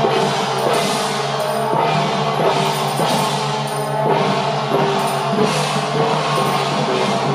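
Temple procession drums and percussion beating a steady rhythm, with repeated ringing crashes over a held melody line.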